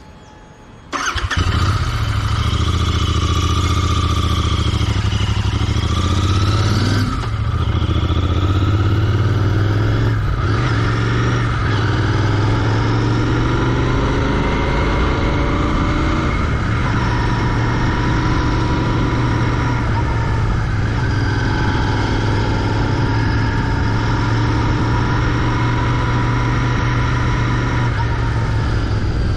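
Royal Enfield Continental GT 650's 648 cc parallel-twin engine, with its stock exhaust, starting up about a second in. The revs rise and fall over the next few seconds, break briefly twice, then settle into steady running.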